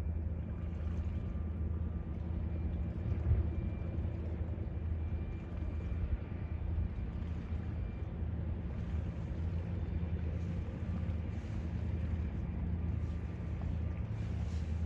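Steady low drone of the lake freighter John J. Boland's engines carrying across the water, with a few faint steady tones above it. Light wind buffets the microphone now and then.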